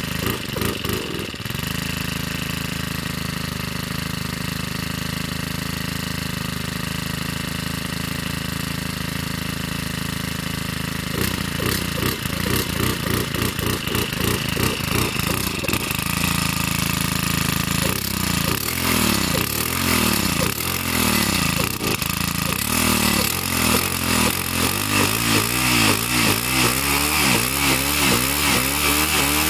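Shindaiwa T344 string trimmer's two-stroke engine running shortly after a cold start. It idles steadily at first; about eleven seconds in the throttle is opened, and in the second half it is blipped over and over, revving up and dropping back in quick repeated sweeps that get louder toward the end.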